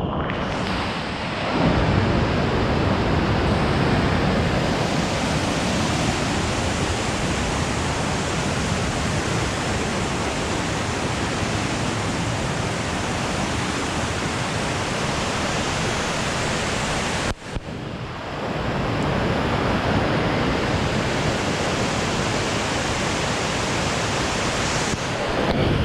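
Waterfall, its falling water making a steady, loud rush, broken by a sudden brief drop about seventeen seconds in.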